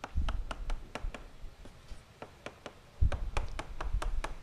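Chalk writing on a chalkboard: quick sharp taps and short strokes of the chalk, several a second, with dull low thumps near the start and about three seconds in.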